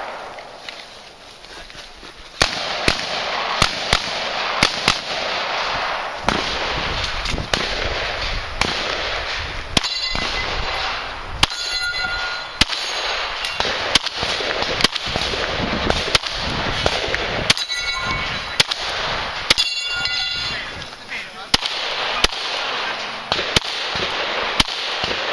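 Glock 17 9mm pistol fired in a steady string, roughly one to two shots a second, starting a couple of seconds in. Steel targets ring after several of the hits.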